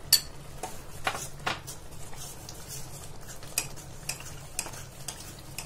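Stainless-steel ladle stirring ground coconut paste into a simmering gravy in a steel kadai, clinking and scraping against the pan. There is a sharp clink right at the start and several lighter ones spread through.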